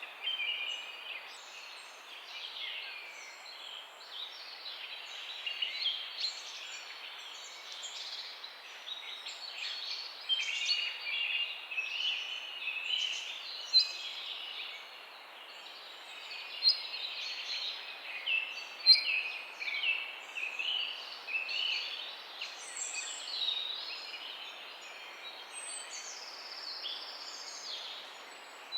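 A dawn chorus of many songbirds chirping and trilling over one another, with a few louder, sharper calls standing out, over a steady hiss of background noise.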